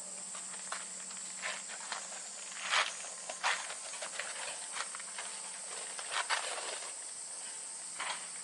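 Arc of an old Suzukid Arcury 100 semi-automatic wire welder sputtering and crackling as it runs a bead with gasless, stainless steel wire. Irregular sharp pops, louder about three, three and a half and six seconds in, sit over a steady low hum.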